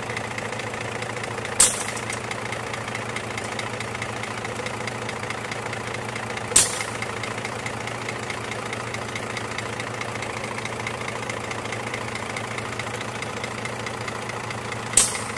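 Scania truck's diesel engine idling steadily, with three short sharp clicks: about a second and a half in, about six and a half seconds in, and near the end.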